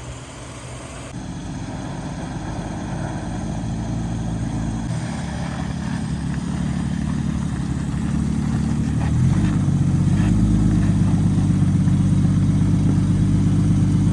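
Off-road 4x4's engine running on the trail, getting steadily louder, with a jump in level about nine seconds in.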